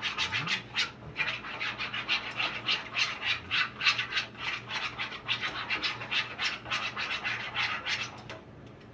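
Quick, rhythmic scraping strokes, about three or four a second, that stop shortly before the end.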